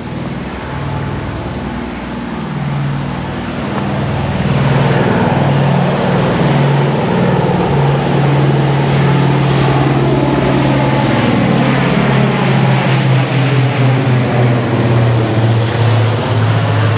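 A four-engine World War II propeller bomber flying low overhead, its piston engines giving a loud, steady, deep drone. The drone swells about four seconds in and stays loud as the plane passes over.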